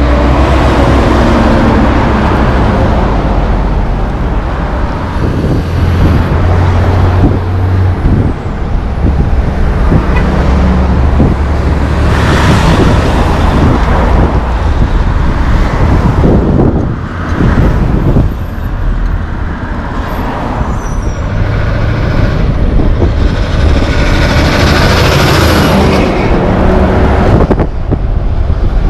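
Heavy diesel trucks and trailers passing close by one after another: engine drone and tyre noise swell and fade with each pass, over steady road traffic.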